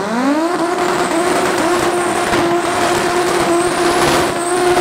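Turbocharged five-cylinder engine of an Audi S2 drag car revving up and held at a steady high pitch for about four and a half seconds, as in a burnout, then falling away at the very end.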